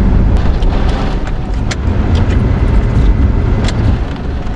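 Hurricane-force wind blowing hard in a heavy, gusting low rumble, with scattered sharp ticks and raps throughout.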